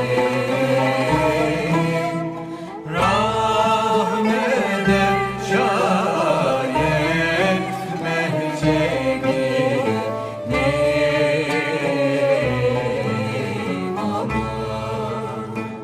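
Ottoman classical vocal music: a yürük semai in makam Zâvil, sung with ornamented, gliding melodic lines over instrumental accompaniment with a low bass line that moves note by note.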